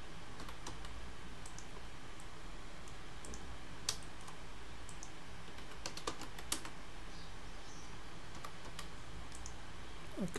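Computer keyboard keys and mouse buttons clicking now and then, about a dozen separate clicks spread unevenly over a steady low hum.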